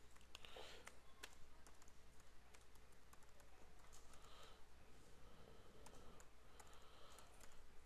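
Faint typing on a computer keyboard: an irregular run of key clicks over a steady low hum.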